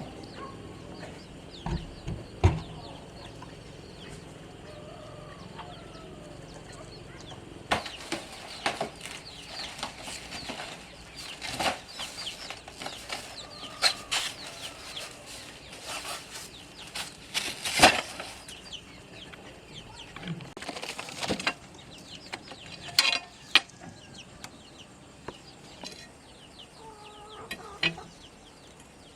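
Chickens clucking, with short calls now and then. Two dull knocks come about two seconds in, and many irregular sharp clicks and knocks follow through the middle.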